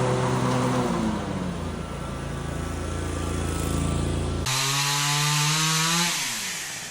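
Snapper zero-turn mower's small engine running, its speed dropping about a second in. After an abrupt change it runs faster again, then winds down and fades near the end.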